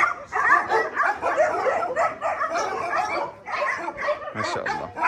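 Many dogs barking and yipping at once, the calls overlapping without a pause.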